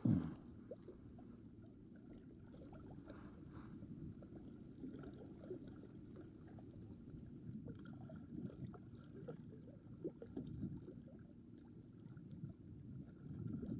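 Faint, low wash of small sea waves lapping against shore rocks, with scattered light clicks and a short thump right at the start.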